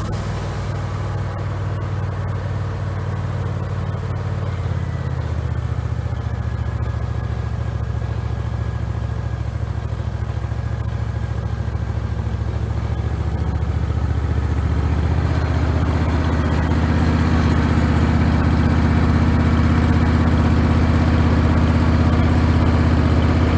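Engine running steadily, its tone shifting about five seconds in and growing louder over the second half.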